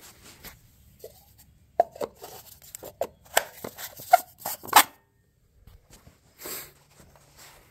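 A hand handling the rear PTO stub and hitch parts of a Kioti CK3510 compact tractor, with the engine off: a quick run of sharp clicks and knocks from about two to five seconds in, then a single duller thump.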